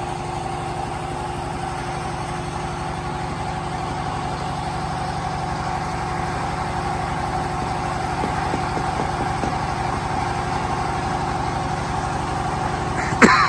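An engine running steadily at a constant idle with an even hum, and a brief sharp sound near the end.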